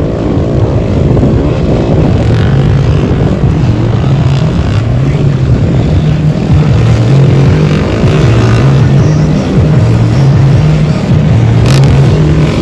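Motocross dirt bike engine running hard, heard close from its onboard camera, the revs rising and falling again and again as the rider works through the track.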